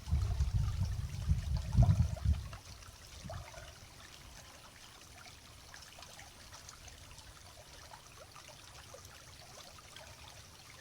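Faint flowing river water trickling, with small scattered ticks. A loud low rumble fills the first two seconds or so and then drops away.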